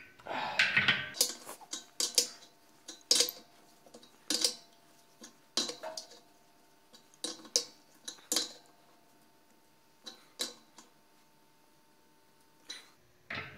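Adjustable wrench clicking and clinking against a brass pipe fitting as the doped fitting is turned tight into the air compressor tank. The wrench is set on and lifted off in short strokes, giving a string of sharp, irregular metal clicks that thin out toward the end.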